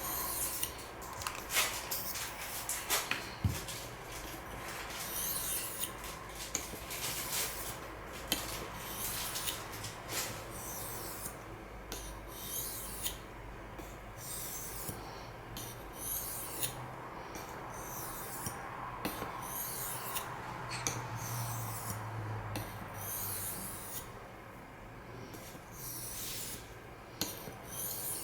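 Steel knife blade, CPM S30V, being stroked back and forth across a sharpening water stone: a run of short, gritty scrapes, one after another about every half second to a second.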